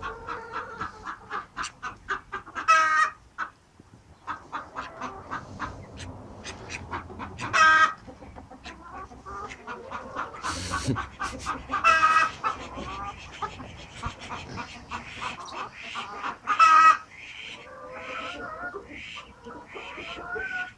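Silkie chickens clucking and calling, with a louder, longer call every four or five seconds. A single knock sounds about halfway through.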